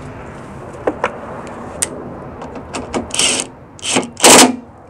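A few sharp plastic clicks and knocks as a car headlight assembly is pressed into its mounts, then a cordless power driver run in three short bursts near the end, the last the loudest, spinning a socket onto a headlight retaining bolt.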